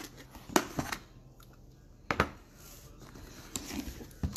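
Cardboard jersey box being handled and opened: a few sharp knocks and taps of cardboard, then soft sliding and rustling as the inner tray comes out.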